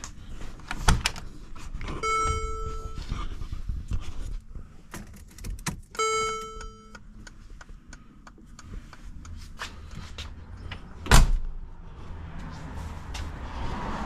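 2015 Mercedes G63 being switched on from inside: clicks and key handling, two electronic warning chimes a few seconds apart, each one held tone about a second long, then a heavy door thump near the end.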